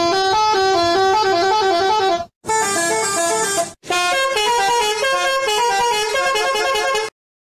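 A bus's musical multi-tone horn (a 'telolet' horn) playing a quick stepping tune, loud, in three stretches with short breaks between them, stopping shortly before the end.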